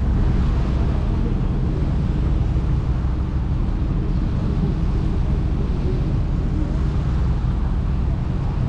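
A steady low engine rumble with an even rushing noise over it, unchanging throughout.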